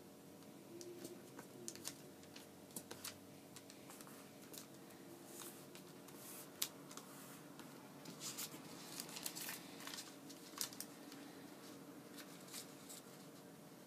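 Origami paper being folded and creased by hand on a tabletop: faint, scattered rustles, crackles and taps as the sheet is pressed and slid, over a low steady hum.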